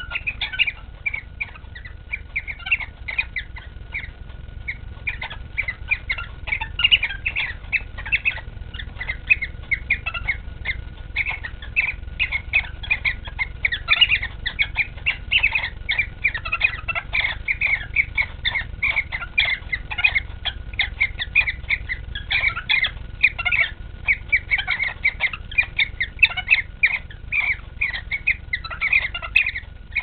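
Cockatiels mating, giving a dense, continuous chatter of short high chirps, several a second.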